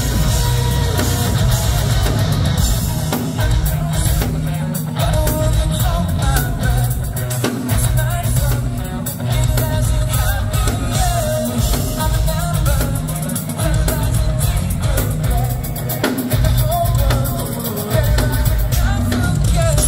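Live rock band playing loudly: electric guitars, bass and a drum kit, with a singer's vocals over them.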